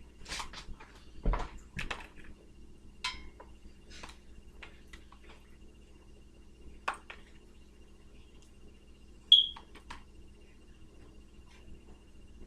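Scattered light taps and clinks of kitchen handling on a metal baking sheet, with one sharp ringing ping about nine seconds in, the loudest sound.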